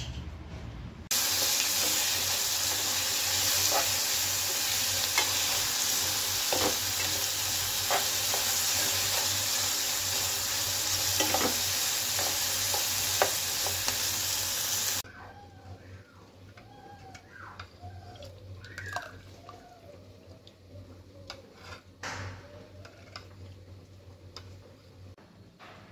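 Chopped vegetables sizzling loudly in hot oil while a spatula stirs and scrapes the pan, with occasional clicks. The sizzle cuts off suddenly about 15 seconds in, leaving quieter, scattered clinks and scrapes of a ladle in a pot of curry.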